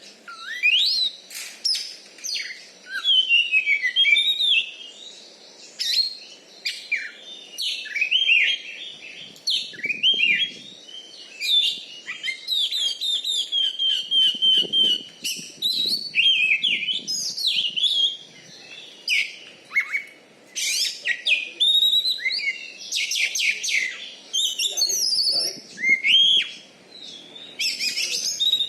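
Oriental magpie-robin (kacer) singing a long, varied song of whistles, sharp chirps and rapid trills in quick phrases with short pauses between them.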